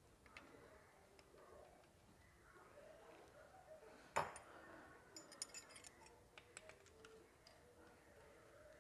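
Faint clicks and light metallic clinks as parts of a Bajaj Discover engine's gear-shift mechanism are handled and fitted in the open crankcase. There is one sharper knock about four seconds in, then a quick run of small ringing clinks.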